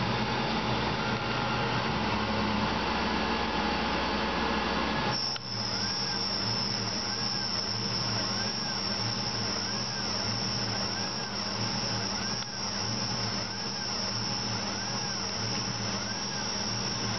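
Tormach PCNC 1100 CNC mill thread-milling with a carbide thread hob in Ertalon plastic, coolant flowing: steady machine running with a whine that rises and falls in pitch about once a second as the cutter traces each helical circle. About five seconds in the sound dips briefly and a steady high whine joins.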